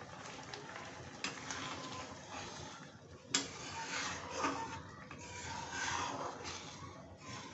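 Chana dal simmering and bubbling in a metal kadhai, then a steel ladle stirring and scraping through it. The ladle gives a sharp clink against the pan at about three and a half seconds, after a fainter click about a second in.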